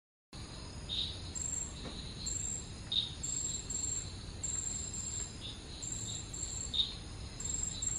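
Insects chirping: short high trills repeating about every half second to second, with a lower chirp every second or two.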